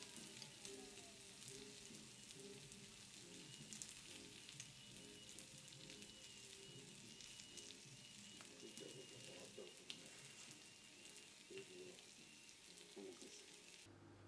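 Faint sizzling and crackling of meat cooking on an indoor Korean barbecue grill.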